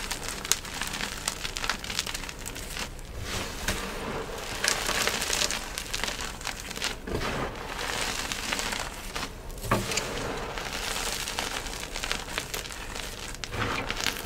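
Crumbled yellow gym chalk being squeezed and crushed in the hands: a steady run of soft crunching and crackling as the pebbles break down into powder, with a few sharper crunches about half a second, five and ten seconds in.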